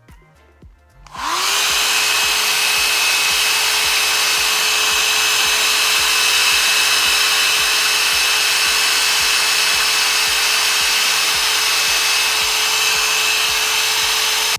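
Handheld hair dryer switched on about a second in: its motor spins up quickly to a steady whine over a loud rush of air, then runs unchanged until it cuts off abruptly.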